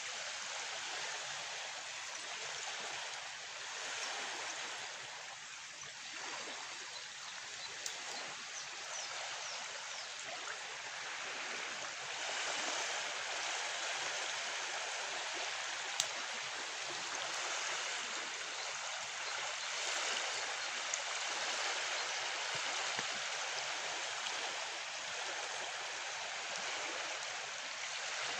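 Steady rushing of flowing river water, with a couple of faint sharp clicks, the clearest just past halfway.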